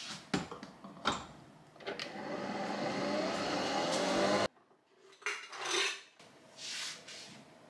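Nespresso Vertuo capsule coffee machine being started: a few clicks as the lid is locked and the button pressed, then a steady machine hum that grows a little louder for about three seconds and cuts off suddenly. Two or three brief soft rustling sounds follow.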